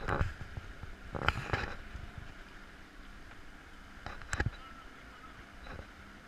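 Motorboat under way with a steady motor drone, and water slapping and splashing against the hull in several short bursts, the loudest about a second in and again around four seconds in.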